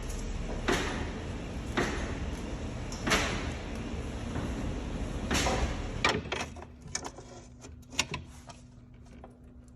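Toyota Land Cruiser 200 knocking and clicking when the brake pedal is pressed. Four loud clunks come over a low rumble, which drops away about six seconds in, leaving a run of lighter clicks.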